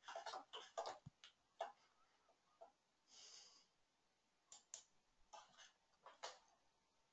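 Near silence broken by faint, irregular clicks and taps, with a short soft hiss about three seconds in.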